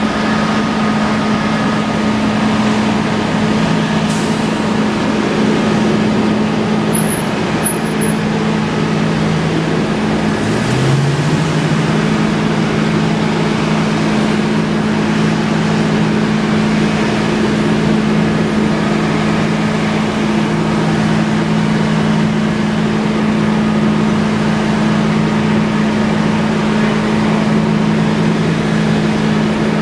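Heavy fire-truck engines running steadily with a low, even drone; about ten seconds in, one engine speeds up and holds at the higher speed.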